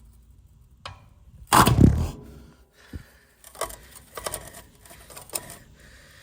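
A sudden heavy metal bang with a low thud about a second and a half in, as a seized, corroded hub bolt on the car's rear suspension is forced under full body weight, followed by several lighter metallic clicks and knocks.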